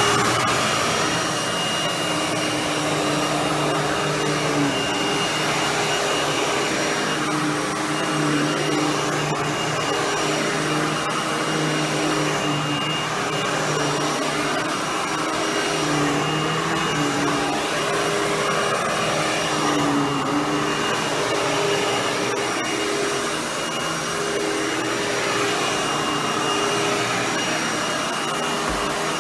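Hoover WindTunnel Anniversary Edition bagless upright vacuum running steadily on carpet, with its brush roll agitating the pile. The motor whine holds steady, its pitch dipping slightly now and then.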